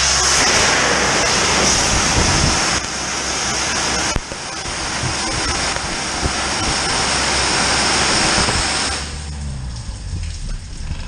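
High-pressure drain jetter nozzle spraying and gushing water in a deep manhole: a loud, dense rush of water over the steady hum of the jetting unit's engine. The water rush drops away about nine seconds in, leaving the engine running.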